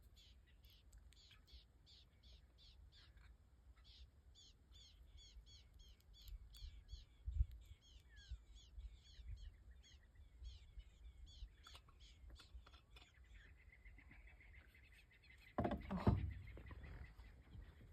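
Birds calling in a long, fast run of short high notes, several a second, which gives way to a thin steady high tone. A brief loud low rumble comes about two seconds before the end.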